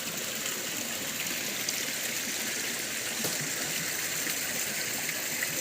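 Steady rush of a nearby stream, running water with no breaks or changes.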